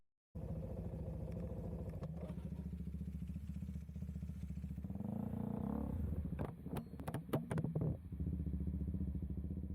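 Motorcycle engine running steadily, with a short rising rev about five seconds in, followed by a cluster of sharp clicks or knocks.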